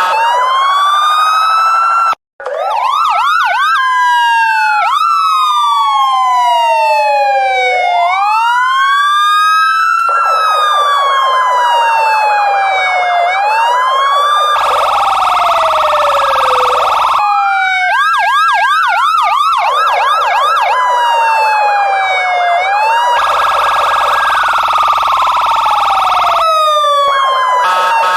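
Electronic police car sirens switching between modes, sometimes two at once: a slow rising-and-falling wail, a quick yelp of fast repeated sweeps, and stretches of a rapid steady pulsing tone with a harsher, deeper blare. The sound cuts out briefly about two seconds in.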